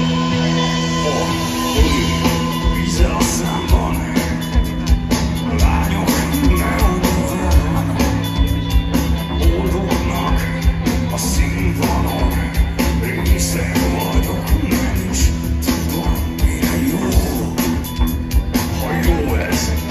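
Live rock band playing through the PA, heard from far back in an open-air crowd: held chords at first, then the drums come in about two seconds in with a steady beat, and a man sings over the band.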